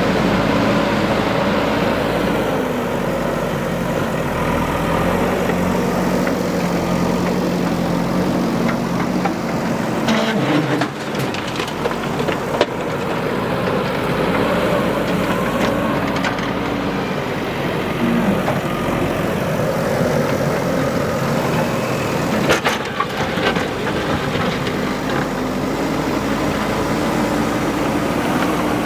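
Diesel engine of a JCB 3DX backhoe loader running under working load, its pitch rising and falling as the machine digs and swings. A few sharp knocks about 11 and 12 seconds in and again near 23 seconds.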